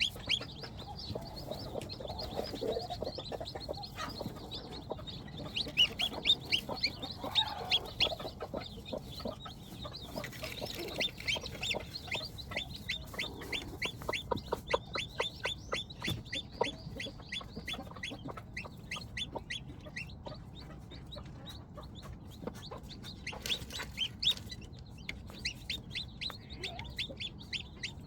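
Chickens calling: many short, high chirps, at times in quick runs, with a few lower clucks.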